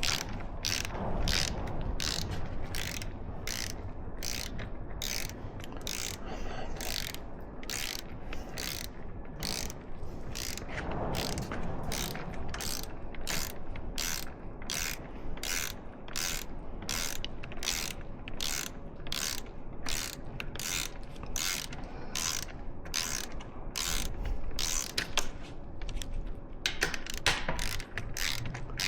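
Hand ratchet wrench clicking in steady, repeated strokes, a little under two a second, as a frame slider bolt is run into the motorcycle's engine mount.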